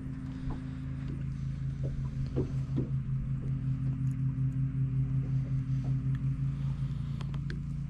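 Boat motor running at low speed: a steady low hum that pulses a few times a second, with a few faint clicks over it.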